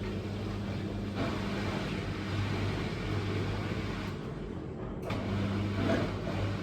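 Miele W1 Professional washing machine running: a steady motor hum with the rush of the turning drum, swelling and easing a little.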